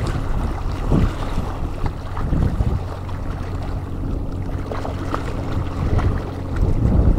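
Strong wind buffeting an action camera's microphone: a steady low rumble that swells with the gusts.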